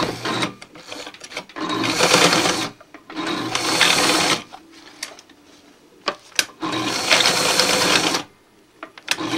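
Electric sewing machine stitching through layered camouflage fabric in three short runs, each about a second long, with brief stops and sharp clicks between them.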